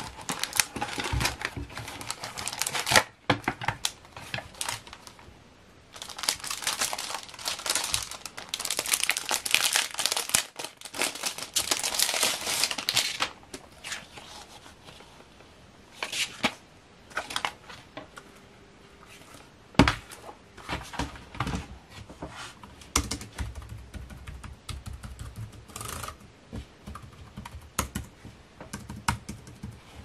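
Clear plastic wrapping film crinkling and tearing as it is pulled off a keyboard and its cardboard box is handled. The crinkling is loudest for several seconds in the first half, followed by quieter scattered clicks and taps, with one sharp knock about two-thirds of the way through.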